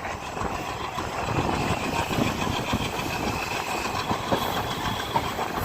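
Yal Devi passenger train running along the track, wheels rumbling and clattering over the rails, with a faint steady high whine.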